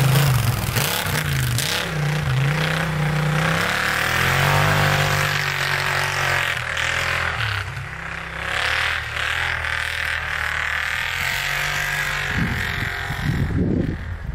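2012 Arctic Cat Wildcat 1000 side-by-side's V-twin engine revving hard while it drifts in snow. Its pitch dips and climbs again several times in the first few seconds, then it holds high revs with a steady hiss over it.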